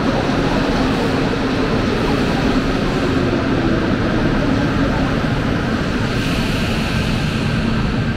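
Rubber-tyred Mexico City Metro train moving slowly along the platform, giving a steady loud rumble and motor hum. A higher hiss joins about six seconds in.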